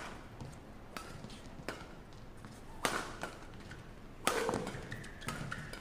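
Badminton rackets striking a shuttlecock back and forth in a fast doubles rally: a string of sharp cracks, roughly one a second, about five in all.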